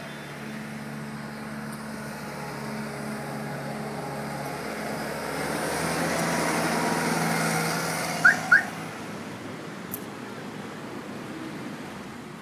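Engine of a compact skid-steer loader running steadily, growing louder as the machine comes close and then easing off. About eight seconds in, two short high rising chirps a fraction of a second apart stand out above it.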